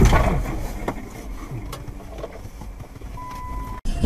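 Noise of a car collision fading out, giving way to low vehicle engine and road rumble, with a short, steady high beep about three seconds in.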